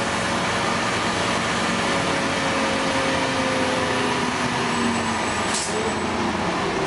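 Cabin noise of a moving LiAZ 5292.22 city bus: steady engine and road noise with tyres on a wet road, and a whine that slowly falls in pitch over the first few seconds. A brief hiss comes about five and a half seconds in.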